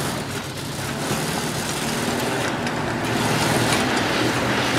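A motor vehicle's engine running steadily, its sound growing somewhat louder about three seconds in.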